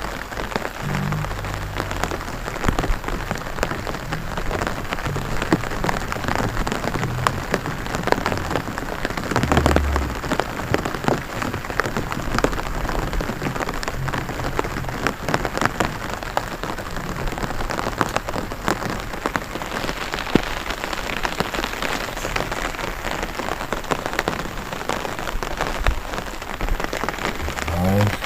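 Rain falling on a rice paddy: a dense, steady pitter-patter of countless drops.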